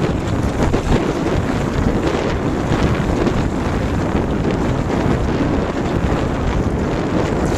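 Strong wind buffeting a smartphone microphone fixed to a small sailboat's gunwale, with water rushing along the hull as the boat sails.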